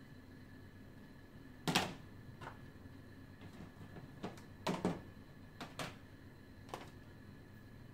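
Irregular knocks and clatters of objects being handled and moved around in a plastic storage box, about eight in all, the loudest near two seconds in. A faint steady high tone runs underneath.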